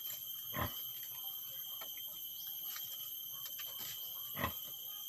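Two dull knocks about four seconds apart, with light rustling and clicks, as a woven nest basket is handled and tied against a wooden post, over a steady high-pitched ringing drone.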